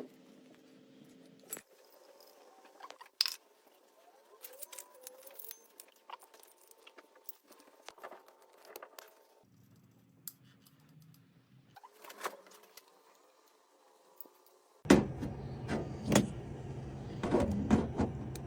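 Light metallic clinking and jingling with scattered taps, broken by abrupt changes in background. About fifteen seconds in, a louder steady low hum starts, with frequent clicks over it.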